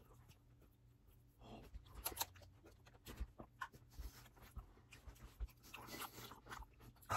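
Faint close-up chewing of a big bite of chocolate: irregular wet mouth clicks and smacks, with a couple of short breaths.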